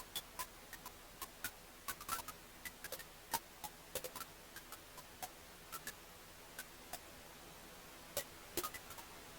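Wood fire crackling: irregular sharp pops and snaps, a few to several a second, over a soft steady hiss of the flames.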